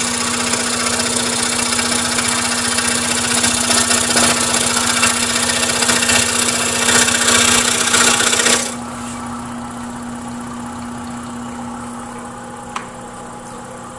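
Scroll saw cutting through a stacked blank of four wood species, the blade's fast up-and-down chatter mixed with a steady motor hum. About eight and a half seconds in the cutting noise stops suddenly and the saw runs on free with just its steady hum, and one light click comes near the end.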